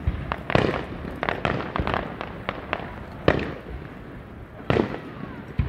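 Aerial fireworks shells bursting one after another in a display. A quick run of sharp cracks and bangs fills the first three seconds, then come three louder booms spaced a second or more apart.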